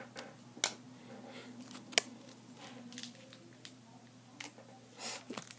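A few scattered sharp clicks and light taps over a faint low room hum, with no speech.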